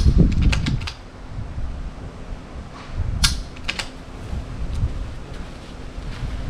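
Sharp clicks and clacks from a .22 rimfire rifle being shot and its bolt worked: a quick cluster near the start and another about three seconds in, over low rumble.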